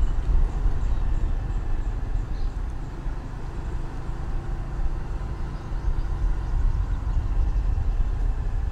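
A two-wheeler's engine running steadily as it is ridden along, with a continuous low rumble.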